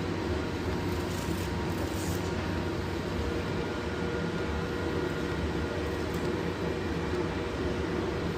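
Steady machine noise: an even hiss over a low hum, with a brief brighter hiss about a second in.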